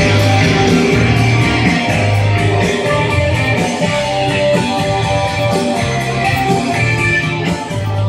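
Loud rock music with electric guitar over a repeating bass note: a band's take playing in the studio, likely the guitar solo.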